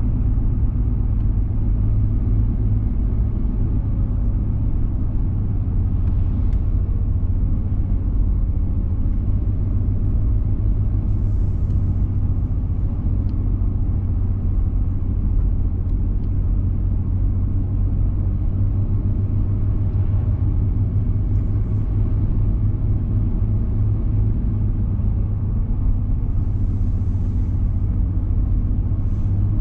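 Car driving at steady speed, heard from inside the cabin: an even low rumble of engine and tyre noise with no changes.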